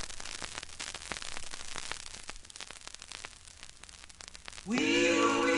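Surface noise of an old vinyl record, steady hiss with scattered crackles and clicks, before the music starts. About 4.7 seconds in, the song's intro comes in on an organ-like chord that slides up into pitch and then holds.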